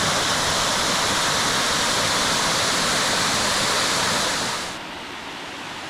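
Waterfall water rushing steadily, a loud even noise. About three-quarters of the way through it drops suddenly to a quieter, duller rush.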